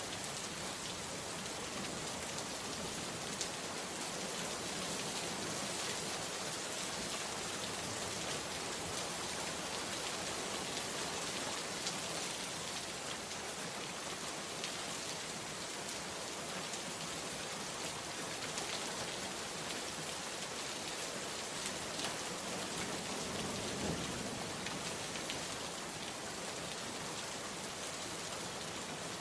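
Steady rain falling on surfaces, an even hiss with scattered sharper drop ticks.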